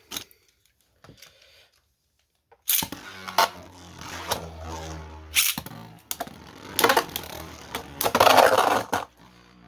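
Two Beyblade spinning tops, one of them 3D printed, launched into a plastic stadium a little under three seconds in. They spin with a steady whirring hum and scraping, clash sharply several times, and make their loudest, rattling collision near the end.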